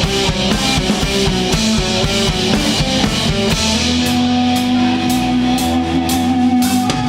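Rock band playing live: instrumental intro with drum kit and distorted electric guitars, the drumming busy at first, then easing off about four seconds in under sustained guitar chords.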